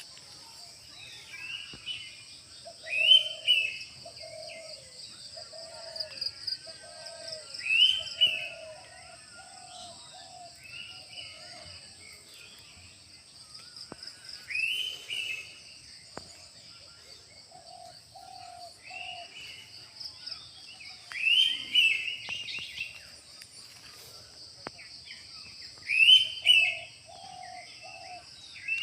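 Morning birdsong: a loud, sharp rising call repeats about every five seconds, with short runs of three or four lower notes from another bird in between. A steady, high pulsing trill runs underneath the whole time.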